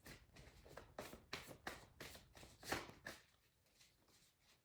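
Tarot cards being shuffled and handled: a quick run of faint card flicks and rustles that stops about three seconds in.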